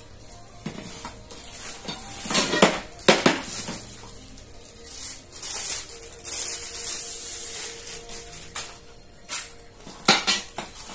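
Painted steel shelf rails clanking and knocking against each other as they are lifted and sorted, with the plastic wrap around them crinkling. A few sharp clanks come two to three seconds in and again near the end.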